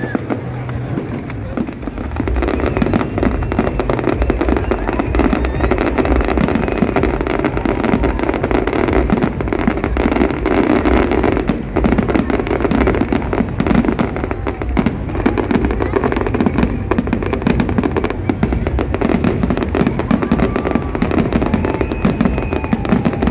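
Fireworks going off in a dense, rapid barrage of bangs and crackles, growing louder about two seconds in.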